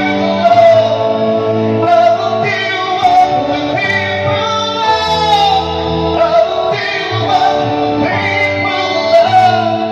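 Live band playing a song: a man singing into a microphone over electric guitar.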